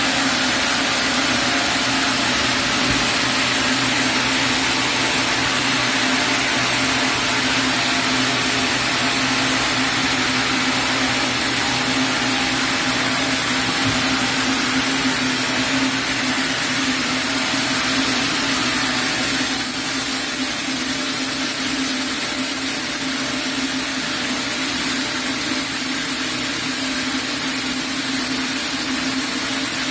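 Sawmill saw running steadily with an even hiss and a steady hum. The hiss eases a little about two-thirds of the way through.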